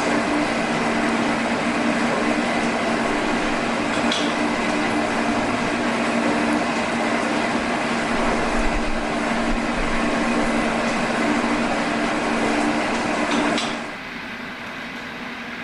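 A machine-shop machine running steadily with a low hum, faint clicks over the noise, cutting out about 14 seconds in to a quieter background drone.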